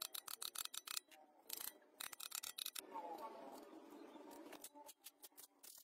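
Rapid runs of light clicks and rubbing from metal engine parts being handled and pressed into place: a seal housing worked over a crankshaft end.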